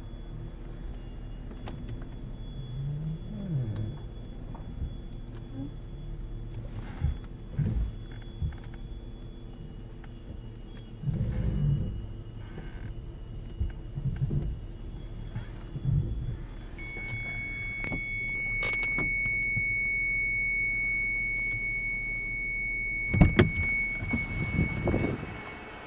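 Mercedes E240 idling with occasional low thumps. About two-thirds of the way through, the licence-plate parking sensor's dashboard display gives a steady high warning tone for about six seconds, the sensor's sign that an obstacle is very close behind. Two sharp knocks follow.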